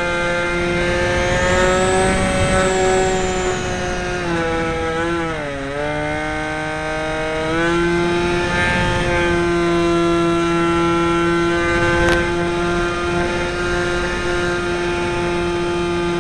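Aerobird RC plane's electric motor and propeller, heard from a camera mounted in the plane, running with a steady whine. Its pitch sags about four seconds in and jumps back up some three seconds later, and there is one short click near the end.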